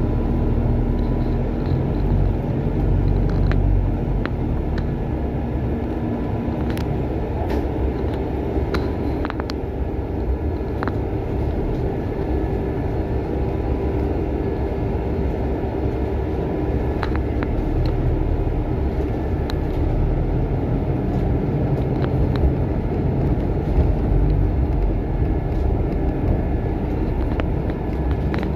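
A bus's engine and road noise, heard from on board as it drives: a steady low rumble with a faint hum and scattered short clicks and rattles.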